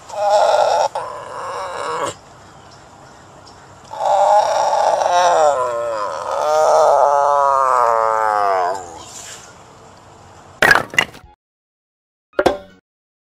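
Tiger roaring in two bouts: a short one at the start, then a longer one from about four seconds in that falls in pitch at the end. A few short clicks follow near the end.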